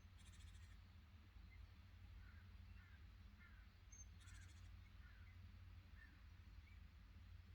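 Faint bird calls in woodland: scattered short chirps, and two brief high buzzy calls, one just after the start and one about four seconds in, over a low steady hum.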